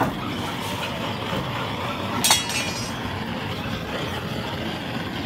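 Handheld long-wand gas torch burning with a steady hiss as its flame is played over plucked chickens to singe off the remaining feathers. A brief metallic clink about two seconds in.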